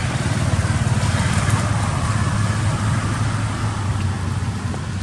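A motor vehicle's engine running close by: a steady low rumble that swells slightly in the middle.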